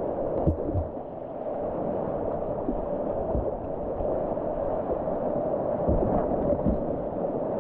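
River water rushing and gurgling around a kayak in a steady wash, with a few short low thumps scattered through it.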